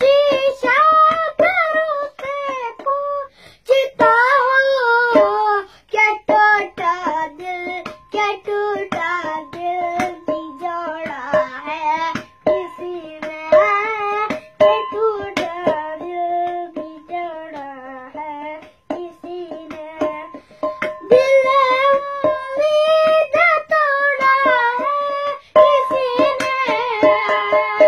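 A boy singing a song in Urdu, keeping time by beating with his hand on a steel container held in his lap. Many quick metallic strikes sound under the voice, with a steady ringing tone.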